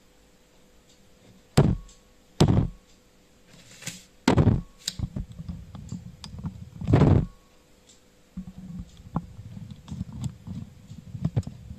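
Handling noise on a Zoom H3-VR ambisonic microphone as it is touched: four heavy thuds in the first seven seconds, then a low, uneven rumbling and crackling as fingers grip the capsule head.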